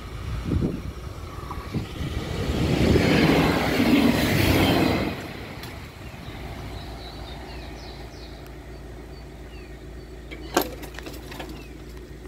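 Short regional passenger train passing over a level crossing, its wheel and rail noise rising to a peak about 2 to 5 seconds in and then dropping away quickly as it leaves. A single sharp click follows near the end.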